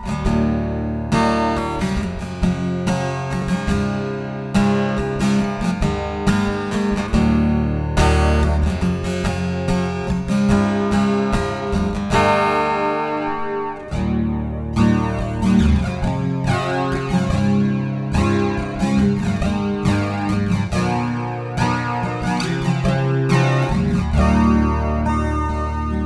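Yamaha FGX830C acoustic-electric guitar playing a passage of ringing chords and single notes, amplified through a Yamaha THR30IIA acoustic desktop amp and recorded direct from the amp's line output.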